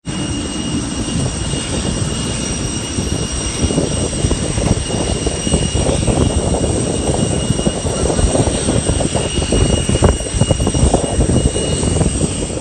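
Airport apron noise from a moving vehicle: a steady low rumble with buffeting, and a thin steady high-pitched whine throughout.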